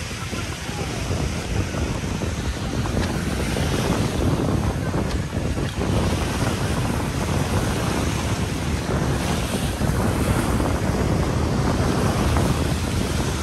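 Sea waves washing onto the beach in a steady rush, with wind rumbling on the microphone.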